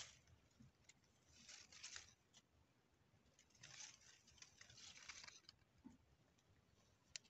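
Near silence broken by faint rustling, in two stretches of about a second each, and a few light clicks, with one sharper tick near the end: handling noise as the scoped air rifle is swung around inside the leaf hide.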